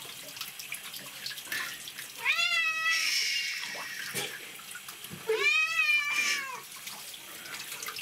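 A cat meowing loudly twice while being washed under a running handheld shower, two long drawn-out yowls about three seconds apart, with the steady hiss of the shower spray underneath. The calls are the cat's protest at being bathed.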